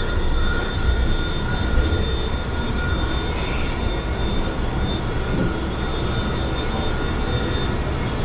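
Interior running noise of a CSR Zhuzhou "AMY" light rail train in motion: a steady rumble of wheels on rail, with a faint steady high whine on top.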